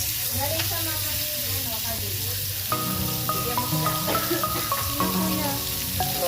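Beef steak sizzling on a hot grill pan, a steady frying hiss, with background music of held notes joining about three seconds in.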